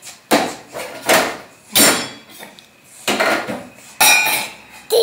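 A small metal cup knocked against a wooden tabletop about six times at uneven intervals, each knock with a short metallic ring.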